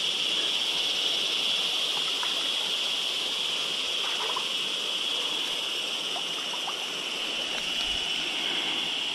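Steady rushing of a shallow river riffle, with a steady high-pitched drone over it.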